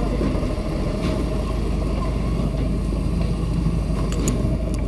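Fire truck engine and pump running steadily, with a few faint clicks about four seconds in.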